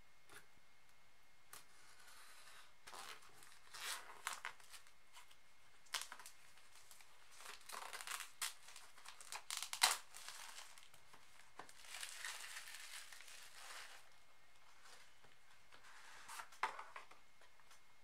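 Clear plastic shrink wrap being slit and peeled off a small cardboard product box, crinkling and tearing in irregular bouts with a few sharp snaps, the loudest about ten seconds in.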